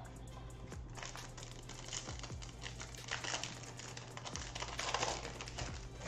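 Foil wrapper of a Prizm Monopoly trading-card pack being torn open and crinkled by hand, with a run of small clicks and rustles from handling the pack and cards.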